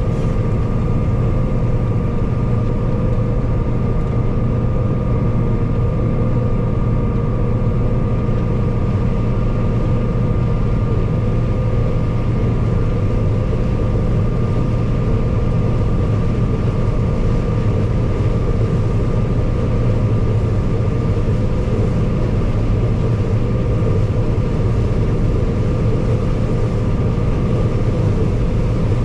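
Combine harvester running steadily while harvesting corn: an even engine and threshing drone with a steady whine above it.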